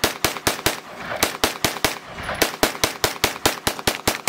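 Ruger PC Charger 9mm pistol-calibre carbine in a rapid semi-automatic mag dump: a fast string of sharp shots, about five a second, broken by two short pauses.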